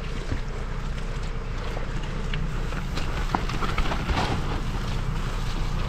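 Mountain bike rolling down a wet, rocky dirt trail: a steady rumble of tyres on dirt and rock with wind rushing over the microphone, and a few sharp knocks and rattles from the bike over the rocks.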